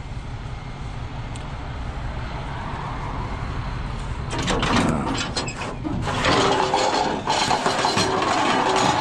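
A car-carrier trailer's loading ramp being pulled out of its stowed position. Metal scraping and clanking starts about four seconds in and carries on, over a steady low rumble.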